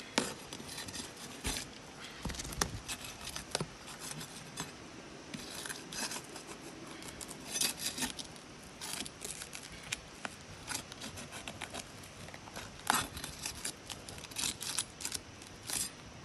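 Brittle asphalt shingles crackling and scraping as they are lifted and pried loose from their tar seal, an irregular run of sharp clicks and crunches with louder clusters about halfway through and near the end. The brittleness heard here is the sign that the shingles crack rather than lift cleanly, so they cannot be repaired.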